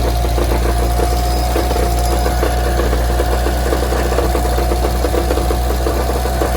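Mitsubishi Evo 4G63 engine idling with a steady, rapid metallic rattling and knocking, felt at the bottom of the oil pan; the cause turned out to be a loose flywheel bolt letting the flywheel wobble.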